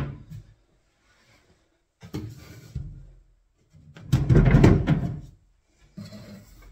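Kitchen base-unit carcasses and a corner post knocked and shifted by hand while being lined up flush: a sharp knock at the start, a few lighter knocks, then the loudest, a rubbing shove of about a second, about four seconds in, and another thump near the end.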